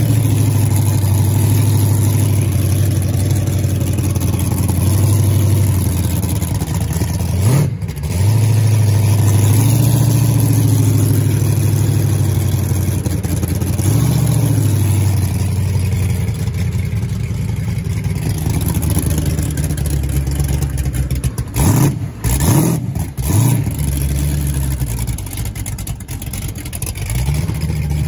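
Monster ride truck's engine running under way, steady with a deep hum, with a quick rev about seven seconds in and a string of rises and drops in revs about twenty-one to twenty-three seconds in.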